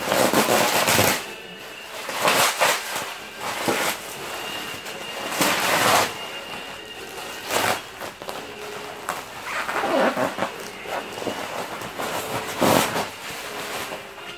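Plastic bubble wrap crinkling and rustling as it is pulled and unwound from a package by hand, in repeated bursts.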